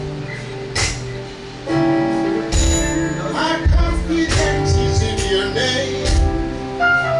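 Live worship music with held chords, drum strokes every second or two and a voice singing.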